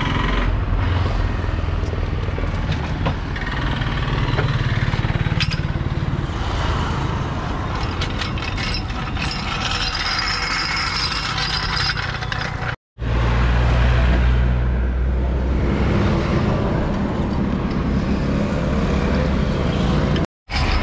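Steady rumble of road traffic and vehicle engines, broken twice by a sudden brief silence.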